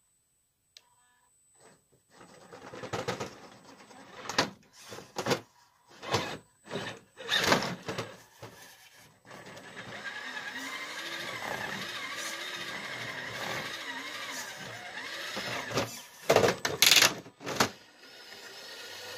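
RC crawler driving over wooden obstacles: irregular knocks and clatter of tyres and chassis on wood for several seconds. Then, from about nine seconds in, a steady electric motor and gearbox whine that wavers in pitch with the throttle. A short burst of loud knocks comes near the end.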